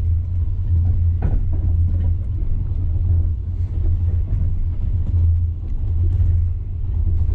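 Steady low rumble of a moving vehicle heard from inside, with a single short knock about a second in.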